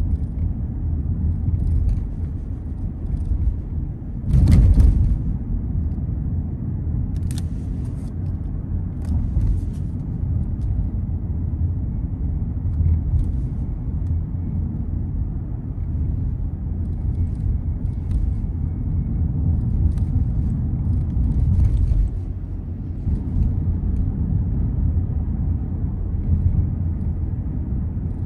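Steady low rumble of a car's engine and tyres on the road, heard from inside the moving car's cabin. About four and a half seconds in there is a brief louder surge of noise, with scattered faint clicks here and there.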